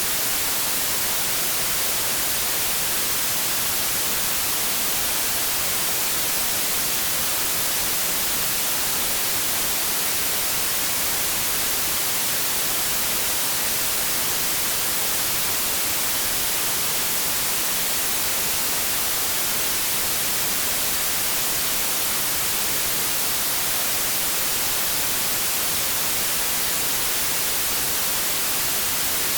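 Continuous white-noise static: a steady, unchanging hiss, brightest in the treble, with no breaks or other sounds.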